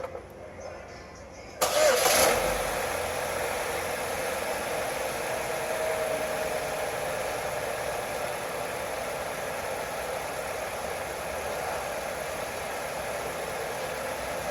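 2007 Chevrolet Cobalt's 2.2-litre Ecotec four-cylinder engine starting about one and a half seconds in, with a brief flare, then idling steadily. Freshly filled with oil after running about 3.5 quarts low, it is surprisingly quiet on startup, without the oil-starvation rattle.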